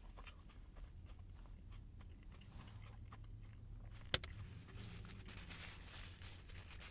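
A person chewing a mouthful of turkey sandwich with soft, wet mouth clicks, and a single sharp click about four seconds in, over a low steady hum.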